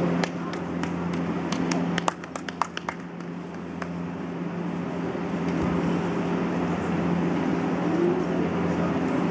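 Sports-hall ambience: a steady low hum with faint distant voices, and a scatter of about a dozen sharp clicks in the first three seconds.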